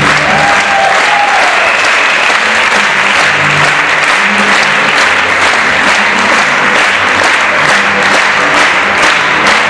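Audience applauding steadily, with ballet music playing underneath.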